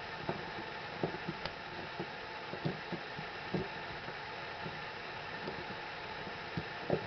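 Phillips screwdriver turning a 2-inch screw out of a 2x4: a string of short, irregular creaks and clicks as the screw turns in the wood. The clicks pause for a couple of seconds past the middle and resume near the end, over a steady hiss.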